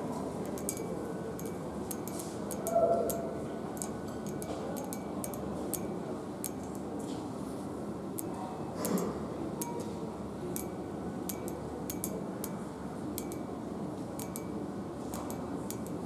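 Long pointed acrylic nails tapping and scratching on a textured handrail: irregular sharp clicks over the steady background hum of a shopping centre. There is a louder bump about three seconds in and another near nine seconds.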